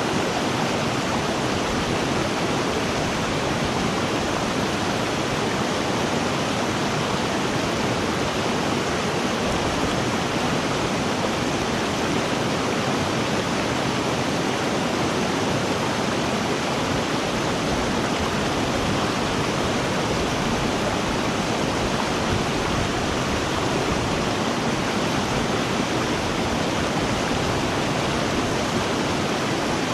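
River water rushing steadily, an even unbroken hiss with no other sounds standing out.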